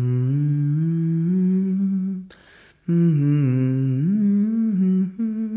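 A man humming a slow wordless melody in two phrases of about two seconds each with a short pause between; the first climbs in steps, the second starts higher and dips before settling.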